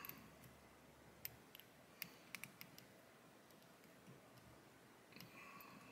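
Near silence with a few faint, sharp clicks and ticks from hand work at a fly-tying vise, as thread is wrapped onto the hook with a bobbin holder.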